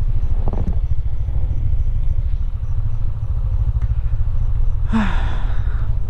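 Steady low rumble of a motorcycle being ridden, engine and road noise together. About five seconds in, a brief louder sound with a falling pitch rises over it.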